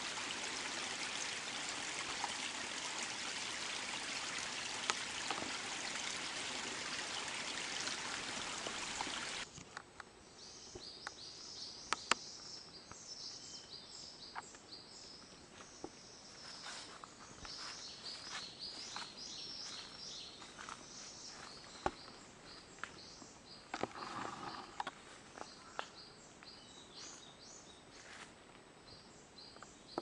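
A small forest stream rushing steadily, cutting off abruptly about nine seconds in. After that, many short high-pitched bird chirps repeat over a quieter background, with a few scattered clicks.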